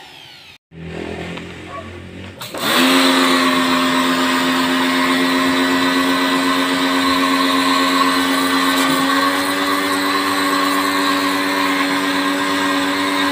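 Pressure washer starting up about two and a half seconds in, its motor settling into a steady, even hum. The water jet hisses as it sprays a turbo intercooler core.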